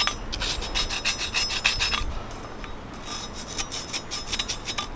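Hand wire brush scrubbing the inner ring of a 2017 Ford F-450 front wheel hub in quick back-and-forth strokes, cleaning the metal so the corrosion won't get worse. The brushing stops briefly about two seconds in, then starts again.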